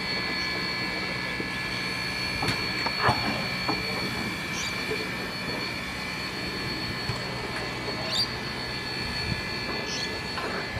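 Queensland Railways BB18¼ class steam locomotive simmering: a steady hiss of escaping steam with a constant high whine over it and a low hum that fades away near the end, with a few faint clicks and knocks.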